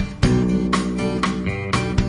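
Intro music: strummed acoustic guitar with a steady rhythm, roughly two strums a second.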